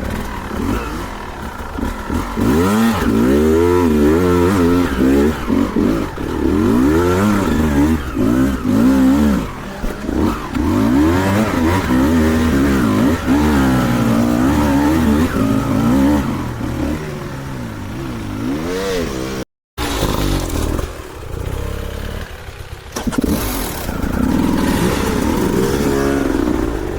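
Two-stroke dirt bike engine being ridden off-road, revving up and falling back again and again as the throttle is worked. The sound cuts out for a moment about two-thirds of the way through.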